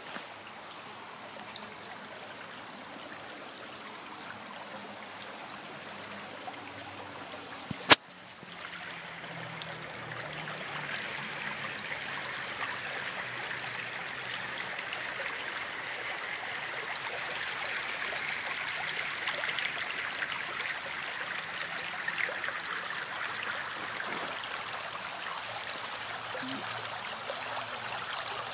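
Shallow stream running over stones, a steady rush of water that grows louder after the first ten seconds or so. A single sharp knock, the loudest sound, comes about eight seconds in.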